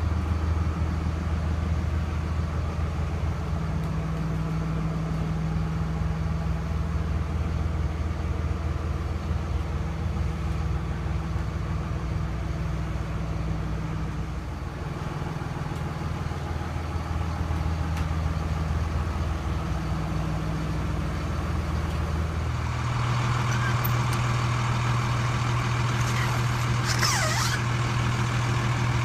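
Cummins 5.9L diesel engine of a Freightliner MB-55 trolley idling steadily. Its hum grows louder and steadier about two-thirds of the way in. A brief high-pitched sound comes near the end.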